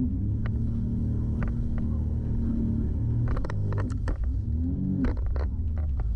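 Sea-Doo jet ski's engine running at speed, its pitch dipping and rising again with the throttle a little past the middle, with sharp slaps of the hull against the water and spray from about halfway.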